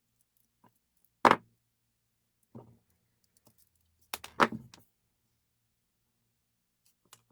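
Small metal parts clicking and clinking as the nuts holding a wind-up toy critter's legs are worked off: one sharp click about a second in, a faint one later, and a short clatter of several clicks just past the middle.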